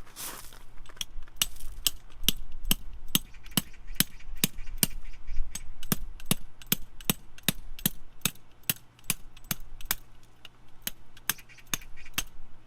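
A steady run of sharp taps or clicks, about two and a half a second, stopping shortly before the end.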